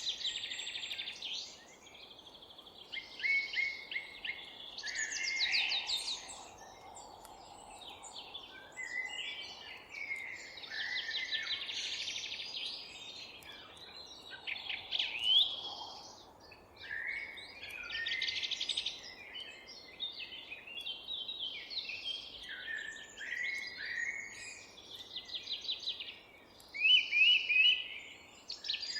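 Several songbirds singing at once, with overlapping phrases of chirps and rapid trills, over a faint steady background hiss.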